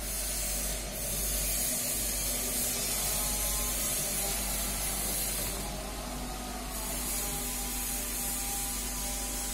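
Reverse-osmosis water plant running: a steady hiss of water flowing under pressure, with the faint hum of its vertical multistage high-pressure pump beneath. The hiss briefly falls away for about a second a little past halfway.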